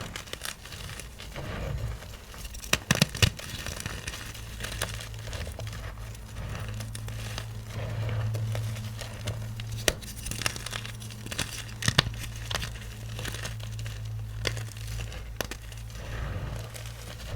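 Blocks of magnesium carbonate gym chalk being crushed, crumbling with dry crunches and many sharp cracks; the loudest snaps come about three seconds in and again about twelve seconds in. A low steady hum sits underneath.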